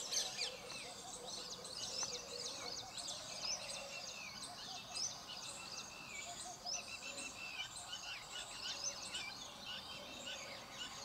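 Small birds chirping, many short high calls overlapping.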